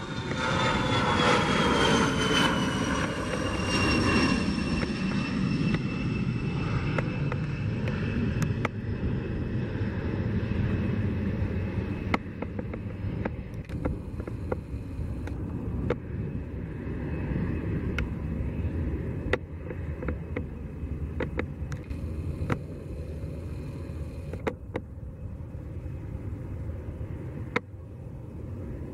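Bombardier Challenger business jet's twin rear-mounted turbofans at takeoff power. The engine whine falls in pitch over the first few seconds as the jet passes, then the jet noise slowly fades as it climbs away.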